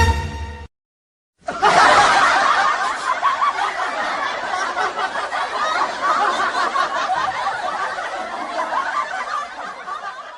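A brief scrap of eerie music cuts off, and after a short gap a crowd laughter sound effect starts: many people laughing at once, like a sitcom laugh track, loud at first and slowly dying away near the end.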